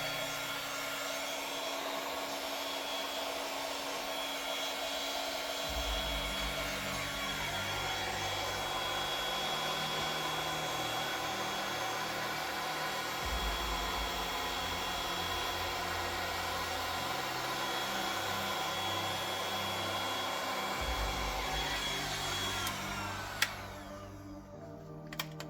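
Handheld air blower running steadily, blowing white resin into wave lacing on a countertop pour. It cuts off about 23 seconds in, followed by a few sharp clicks.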